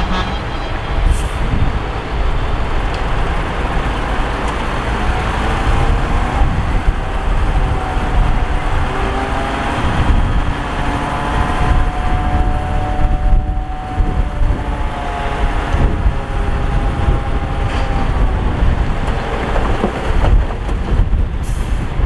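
A heavy diesel engine on earthmoving machinery runs steadily with a low rumble. In the middle its pitch rises and then falls again.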